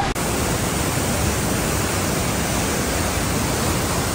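Steady, even rush of creek whitewater tumbling through rapids.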